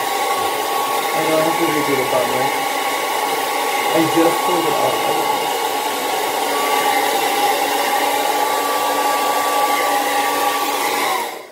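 Handheld hair dryer running, a steady blowing rush with a constant whine, which cuts off near the end as it is switched off.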